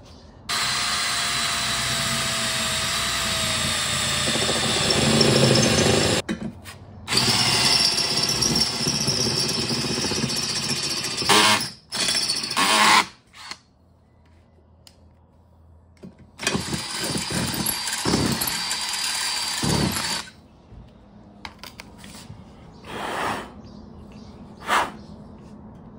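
Cordless drill boring a hole through a bucket seat's metal mounting bracket, running in several bursts of a few seconds with short stops between.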